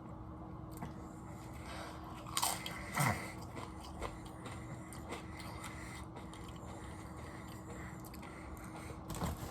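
Biting into and chewing crunchy chips close to the microphone, with a few louder crunches about two and a half and three seconds in and again near the end.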